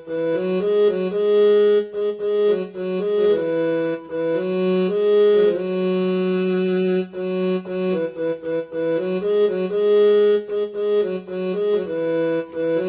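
Casio CTK-2550 portable keyboard playing a slow melody on one of its sustained built-in tones. Each note holds steadily without dying away until the next key is pressed.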